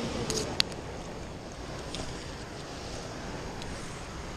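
Steady rush of flowing river water, with a few sharp clicks about half a second in and a fainter one a couple of seconds in.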